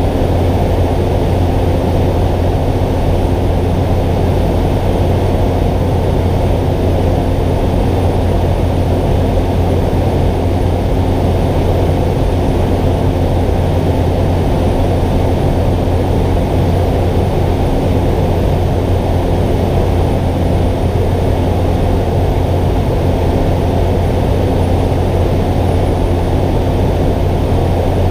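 Cockpit noise of a Cessna 208 Caravan in flight: its Pratt & Whitney PT6A turboprop and propeller running steadily, a loud, even low drone with a steady hum above it.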